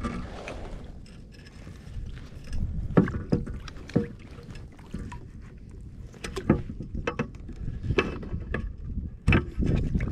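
Water sloshing and lapping against the side of a plastic fishing kayak while a redfish is held in the water alongside on a lip grip. Scattered sharp knocks and clicks of the grip and gear against the hull come through it.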